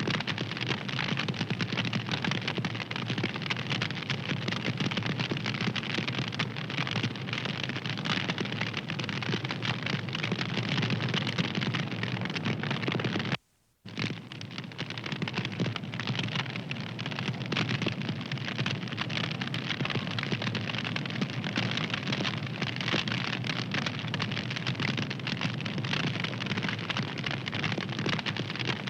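Fire crackling steadily with dense, rapid pops and snaps. About halfway through the sound cuts out to silence for half a second, then starts again.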